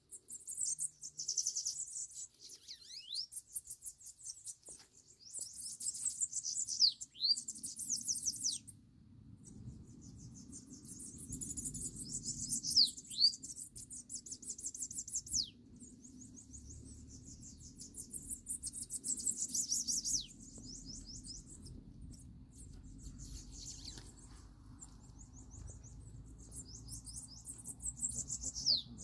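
A small songbird singing repeated high-pitched, rapid trilled phrases, each a second or few long and ending in sharp downward-sliding notes, with short pauses between them.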